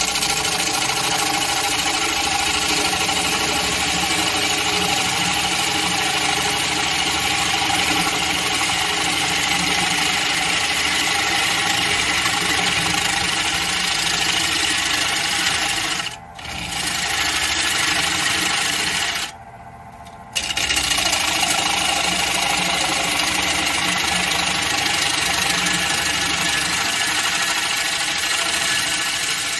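Wood lathe spinning a black walnut bowl blank while a gouge cuts into it, a steady hissing cut over the machine's hum, thinning out the bowl's mass. The cutting breaks off twice, briefly about 16 seconds in and for about a second near 19 seconds, then carries on.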